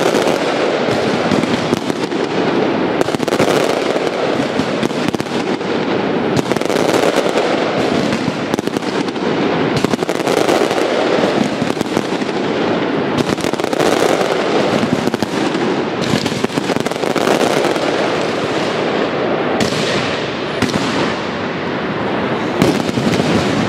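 Aerial fireworks barrage: gold shells bursting and crackling without a break, many sharp reports overlapping into one continuous, dense din.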